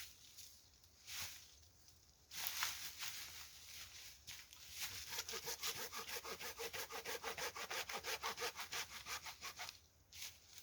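Hand saw cutting through a piece of wood, heard faintly. A few slow strokes come first, then from about halfway in it settles into fast, even back-and-forth strokes, about four or five a second, stopping just before the end.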